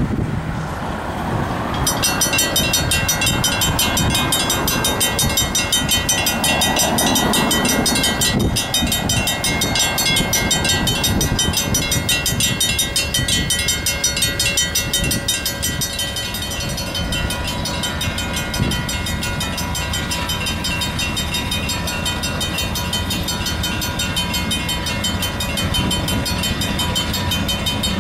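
Railroad grade-crossing bell starting about two seconds in and ringing on rapidly and steadily as the flashing signals and lowered gates warn of an approaching train. A low train rumble lies underneath.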